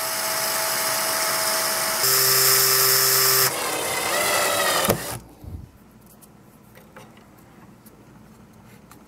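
Electric drill running as its bit bores into a welch plug on a small-engine carburetor: a steady motor whine whose pitch changes about two seconds in, then stops with a click about five seconds in. A few faint small clicks follow.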